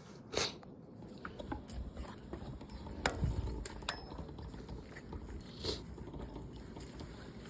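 Irregular scuffs, knocks and rustles of a person clambering over rocky ground, with a low rumble from handling or wind on the microphone. The loudest knock comes about three seconds in.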